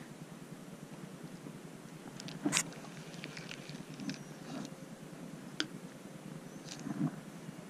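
Handling noise from a spinning rod and reel: a few sharp clicks and soft knocks over a faint steady hiss, the loudest about two and a half seconds in and again near the end.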